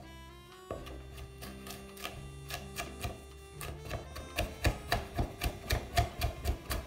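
Chef's knife chopping fresh garlic cloves on a wooden cutting board: scattered strokes at first, then quick regular strokes about four a second from about four seconds in. Background music with sustained notes plays throughout.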